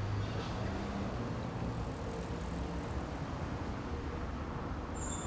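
Steady street traffic noise, with a low hum that is strongest in the first second.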